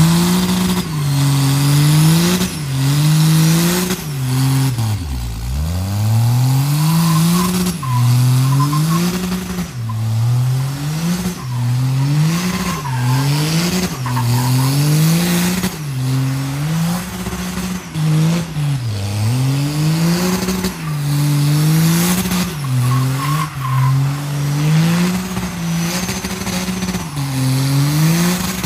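Dodge Ram pickup's engine revved up and down over and over during a burnout, the revs climbing and dropping about every second and a half, with a deep drop about five seconds in; tyre noise runs underneath.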